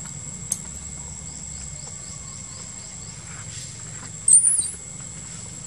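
A short, high-pitched, wavering squeak about four seconds in, over a steady high whine. Earlier there is a quick run of soft, falling chirps and a single click.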